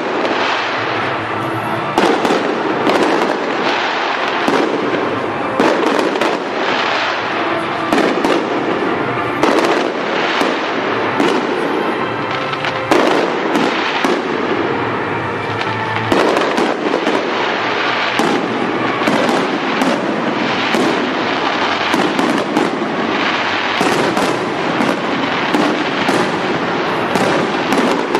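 A fireworks display with a dense, continuous run of overlapping bangs and bursts going off in quick succession.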